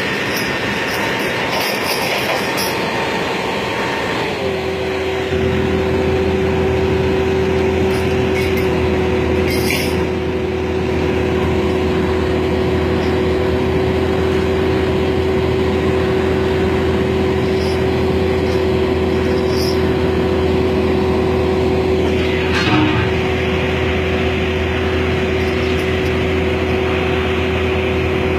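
Single-drum road roller's diesel engine running under load with a steady whine as the machine drives up the loading ramps. About four seconds in the whine steps down in pitch and a deeper steady drone comes in.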